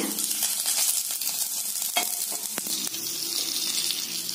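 A tadka of mustard seeds, urad dal, dried red chilli and curry leaves sizzling in hot oil in a stainless steel pan, with two sharp clicks about two seconds in.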